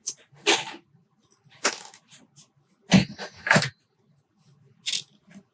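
Small metal clicks and clinks from lock-core pins and springs being pulled out and set down, about five separate taps with the loudest two near the middle.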